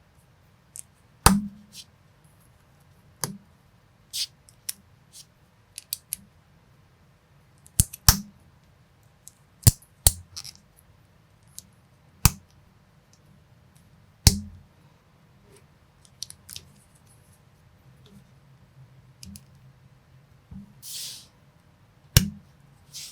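Plastic building bricks and minifigure parts being handled and snapped together: scattered sharp clicks at uneven intervals, with a brief rustle near the end.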